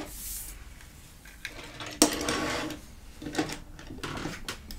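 Plastic toy pieces being handled, giving scattered clicks and light clatter, with one sharp click about two seconds in the loudest.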